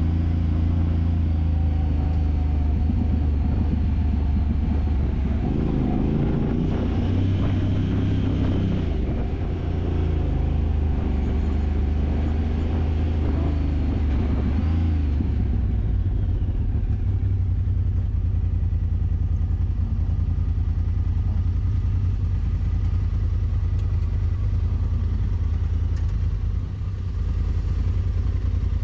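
Side-by-side UTV engine running while driving a trail, its pitch rising and falling with the throttle a few times in the first half, then holding steadier.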